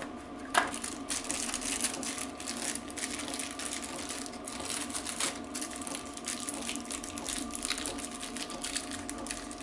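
Small parts and packaging being handled on a workbench: a sharp knock about half a second in, then continuous irregular clicking and rattling over a steady faint hum.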